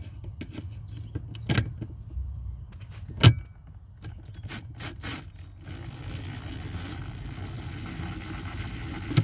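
DeWalt cordless drill/driver on a long extension backing out a T20 Torx screw: a few light clicks and one sharp click as the bit is worked onto the screw, then the motor runs with a steady high whine for about four seconds, stepping up slightly in pitch partway, and stops.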